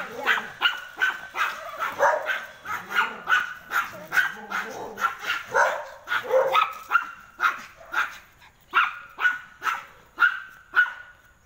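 A dog barking over and over in short, sharp barks, about two a second.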